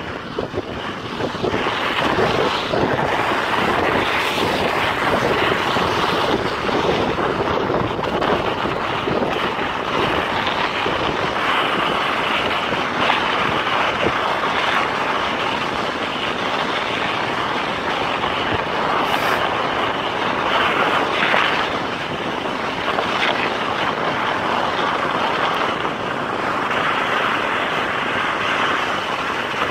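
Steady rushing of wind buffeting the microphone as it moves quickly.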